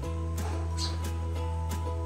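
Background music: an upbeat ukulele tune, plucked notes over a steady bass and an even beat.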